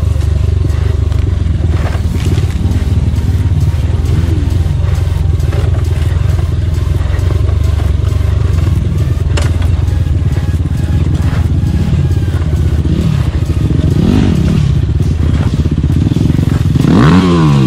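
Motorcycle engine on an off-road trail, its revs rising and falling again and again over a steady low rumble, with scattered knocks and clatter from the ride. Near the end an engine revs up louder twice in quick succession.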